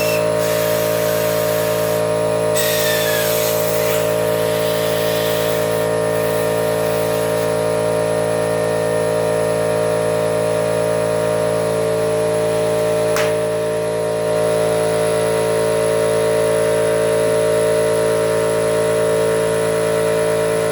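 Air compressor running steadily, a continuous machine hum, with a hiss of air in the first few seconds and a single sharp click about 13 seconds in.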